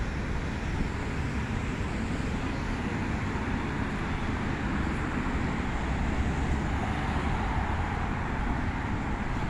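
Steady outdoor background noise: a low, even rumble with no distinct events, of the kind traffic and wind on the microphone make.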